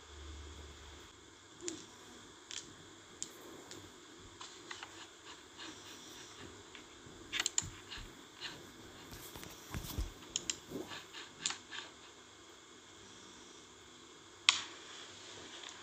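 Scattered light clicks and taps, close and small, coming in irregular clusters with one sharper click near the end.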